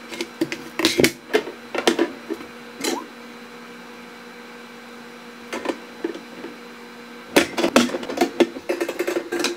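Black metal wire dish-rack sections clicking and knocking together as they are handled and snapped into place by hand. Scattered clicks and taps, a quieter stretch in the middle, then a dense run of clicks near the end.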